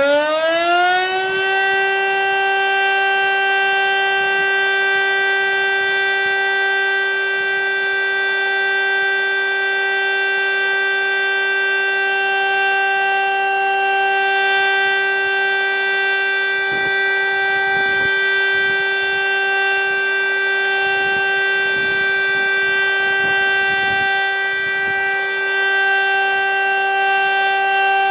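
VEM DS977 electromechanical motor siren finishing its spin-up, its pitch rising for about the first second and a half, then holding one loud, steady tone. This is the continuous tone of the Czech siren test signal, "Zkouška sirén".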